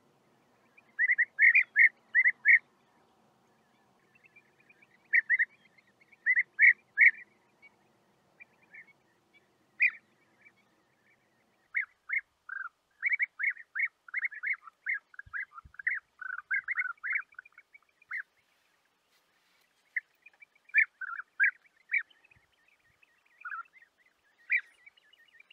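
European bee-eater calls: short, repeated rolling notes in quick clusters of three to five, running almost unbroken for a stretch around the middle.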